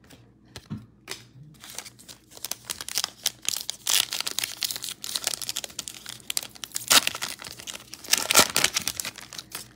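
Trading card pack's plastic wrapper being torn open and crinkled by hand: a dense, crackling run starting about two seconds in, loudest near the end.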